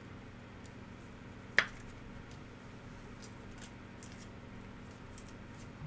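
Trading card in a plastic sleeve being handled and slid into a rigid plastic top loader: faint plastic rustling and light clicks, with one sharp click about a second and a half in.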